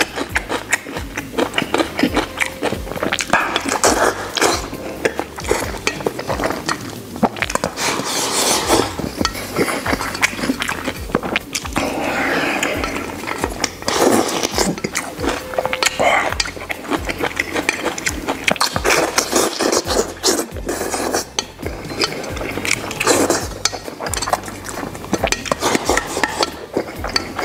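Close-up eating sounds: wet chewing and smacking of braised pork belly and rice, with wooden chopsticks clicking and scraping against a stainless steel bowl as rice is shoveled into the mouth.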